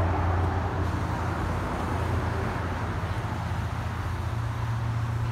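Ram 5500 tow truck's engine idling, a steady low hum.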